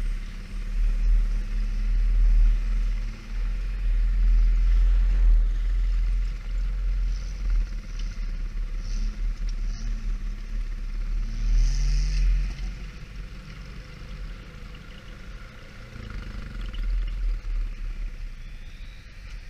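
ATV engine running while riding along a dirt trail, with the engine note rising briefly about twelve seconds in as the rider accelerates. A heavy low rumble of wind on the helmet-mounted microphone runs underneath.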